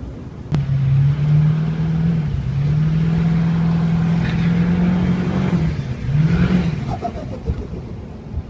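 Tuned turbocharged car engine held at high revs. It starts suddenly about half a second in, dips briefly twice, then rises and falls away near the end.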